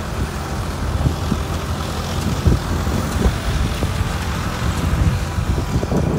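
Off-road vehicle driving on a rough gravel track: a steady low rumble of engine and tyres, broken by many small irregular knocks and jolts.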